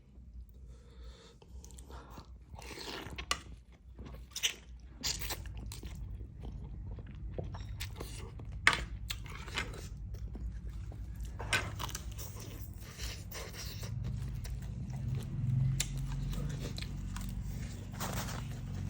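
A person chewing and biting mouthfuls of beef noodle soup with tendon: irregular wet smacks and short crunchy clicks. A low hum rises under it a few seconds before the end.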